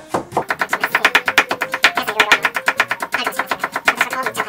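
Kitchen knife slicing fresh ginger into thin strips on a wooden cutting board: a fast, even run of blade strokes hitting the board, about nine a second, over background music.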